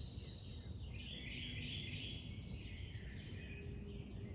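Faint outdoor background: a steady high-pitched whine, with a stretch of high chirping from about a second in.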